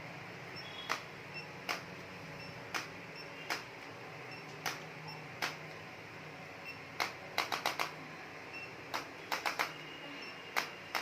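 Sharp clicks and taps at irregular intervals, with two quick runs of three to five taps in the second half.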